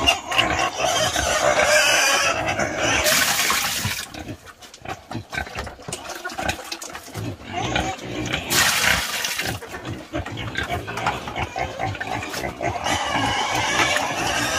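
A pig eating liquid slop from a basin, slurping and chomping in quick wet clicks. About eight and a half seconds in there is a short burst of splashing as more feed is poured into the basin.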